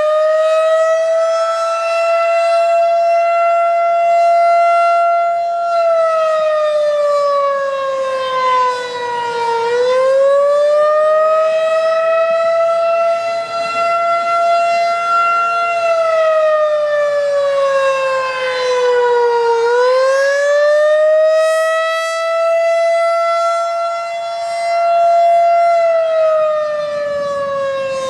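Federal Signal 2001 DC outdoor warning siren sounding the attack signal on test: a single loud tone that winds up, holds high for several seconds, then slides down and winds back up again, about every ten seconds.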